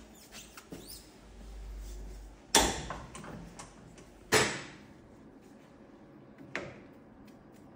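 Workshop handling noise from motorcycle fork work: three sharp knocks of parts or tools being handled and set down, the first two loudest, with a faint low hum before the first.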